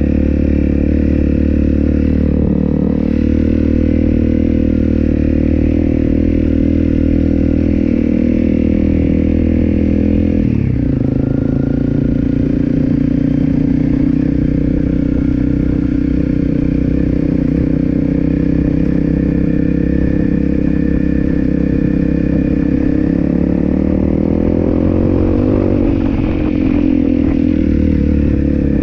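Honda CRF250L's single-cylinder four-stroke engine running under way on a dirt road. Its pitch drops suddenly about a third of the way in, holds steady, then climbs again near the end as the throttle opens.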